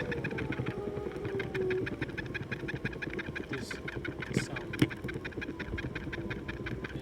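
Wheel of a Backfire G2T electric skateboard turning with a rapid, even ticking, about ten ticks a second, over a faint motor whine. It is an unexplained noise from the wheel.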